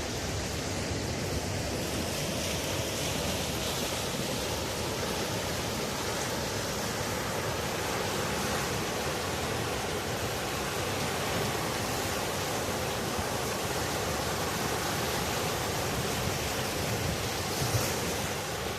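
Steady wash of sea surf breaking on a beach.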